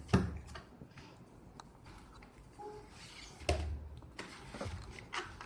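A few faint clicks and knocks of a spoon against a container as honey is spooned in, the loudest a soft thump about three and a half seconds in.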